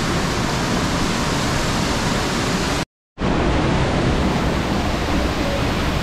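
Waterfall rushing: a loud, steady roar of falling water, broken by a moment of dead silence about halfway through.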